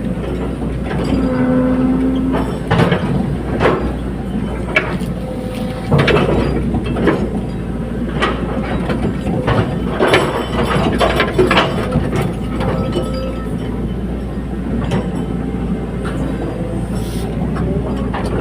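Caterpillar 320D hydraulic excavator at work: the engine runs steadily under repeated metallic clanks and knocks, irregular and heaviest about six to twelve seconds in.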